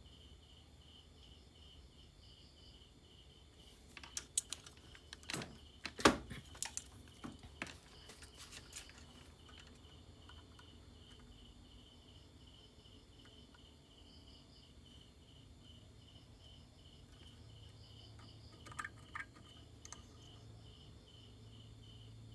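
Sharp clicks and knocks of multimeter probes and their leads being moved over the metal bolts and aluminium heatsinks of an inverter's H-bridge board, clustered about four to nine seconds in (loudest near six seconds) and again near nineteen seconds. Behind them, faint insect chirping pulses steadily at about three pulses a second.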